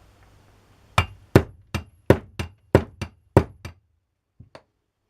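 A hammer tapping a part home on a hand drill being reassembled: about nine sharp taps at roughly three a second, then two light taps near the end.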